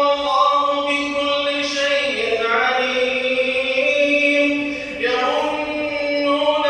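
A man reciting the Quran in a slow, melodic chant, holding long steady notes. The pitch slides down and back up about two seconds in, and he takes a short breath about five seconds in.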